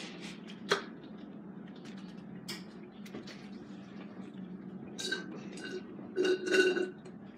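Close-up eating-video handling and mouth sounds: a paper napkin wiped over the mouth, a sharp click a little under a second in, then short sips through a straw from an aluminium drink can in the last couple of seconds.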